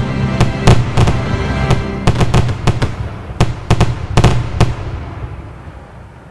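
Fireworks banging and crackling in quick succession over background music. The bangs stop about four and a half seconds in and the sound fades away.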